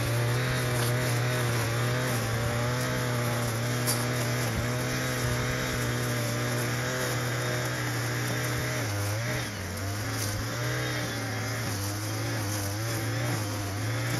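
Brush cutter with a nylon-cord head, its small engine running steadily at cutting speed, the pitch wavering as the cord works through grass. The engine note drops a little about nine seconds in.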